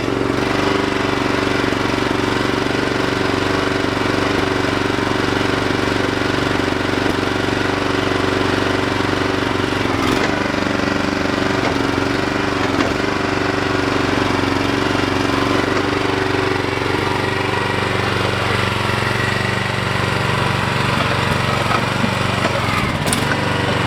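Small engine of a home-built hydraulic mini excavator running steadily, with its tone shifting somewhat in the second half as the machine works. A couple of brief knocks stand out, one about ten seconds in and one near the end.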